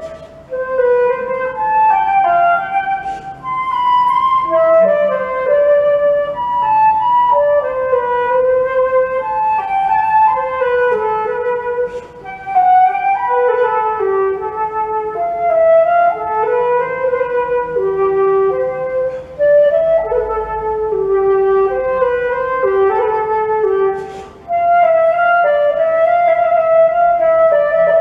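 Background music: a solo flute playing a slow melody of held notes that step up and down, with brief breaks about twelve seconds in and again near the end.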